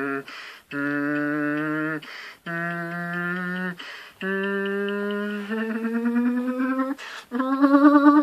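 A man humming a series of held notes with his mouth closed, each about a second and a half long with short pauses between; the first notes carry a second, lower pitch underneath. From about five and a half seconds in, the held note wavers rapidly in a trill-like wobble.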